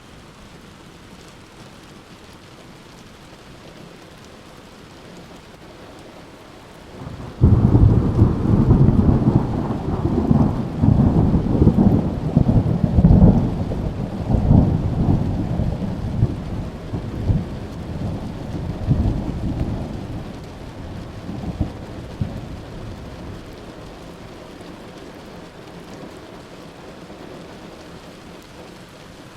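Steady rain falling, then about a quarter of the way in a loud thunderclap breaks suddenly and rolls on in a crackling low rumble that dies away over some fifteen seconds, leaving the rain.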